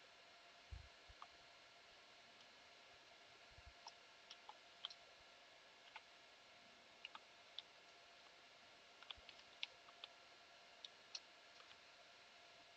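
Scattered, irregular computer keyboard keystrokes, faint against a low steady room hiss.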